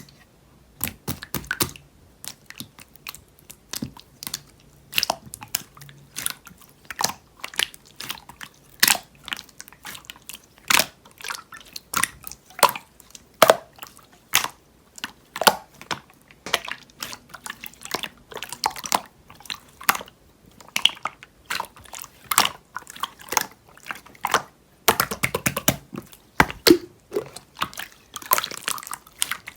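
Slime being squeezed and poked by hand, giving an irregular string of sharp wet clicks and pops from trapped air, a few each second, bunching into quick clusters near the end.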